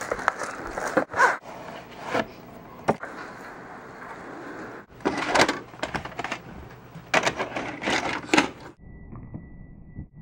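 Plastic clicks and clattering of a VHS cassette and its case being handled and loaded into a VCR, in several separate bursts. Near the end the clatter stops and a steady high tone starts and holds.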